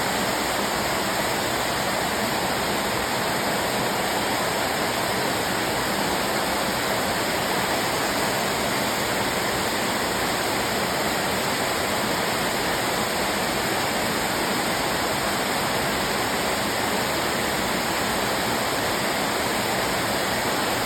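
Heavy rain from a summer storm pouring down steadily: an even rush of noise with no let-up.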